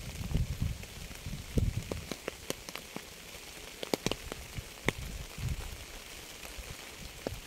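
Rain falling with a steady hiss, individual drops tapping sharply close by. Low rumbles come and go, at the start, about a second and a half in and again near the middle.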